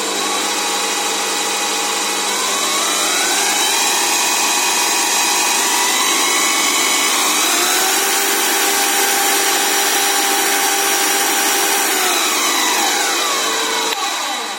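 Zubr bench drill press motor running in second speed as its speed is turned up from about 500 rpm: a steady whine that rises in pitch in two steps, holds, then falls away near the end.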